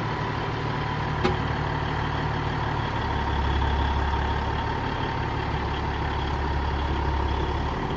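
A vehicle engine running steadily with a low drone that deepens and grows a little louder about three seconds in.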